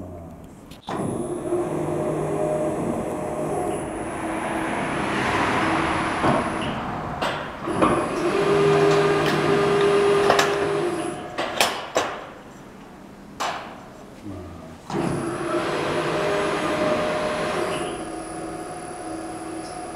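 Powered sheet-metal folding machine working through bends at preset angles: three spells of motor whine several seconds long, with sharp metallic clanks between them.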